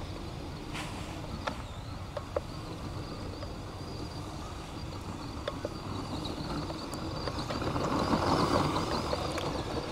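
RC scale crawler truck driving through snow, its motor whining steadily and its tyres spinning and churning the snow. It gets louder about three-quarters of the way through as the truck passes close.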